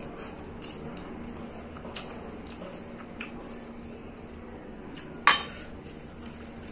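Small stainless steel bowl set down on the table with one sharp, loud metal clank about five seconds in, among a few light clinks of fingers and food against a steel plate.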